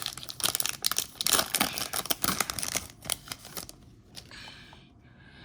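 Trading cards and their wrapping being handled: quick clicks and crinkling that thin out after about three and a half seconds and fade to a faint hiss.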